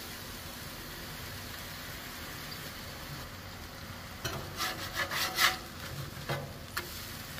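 Smashed sausage patties sizzling steadily on a Blackstone griddle's steel top. About four seconds in, a metal spatula scrapes across the griddle several times as it slides under a patty and lifts it, followed by a short knock near the end.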